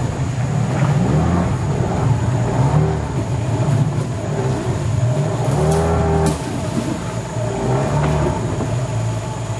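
Outboard motor on a canoe running steadily under way, its pitch rising and falling now and then as the throttle changes.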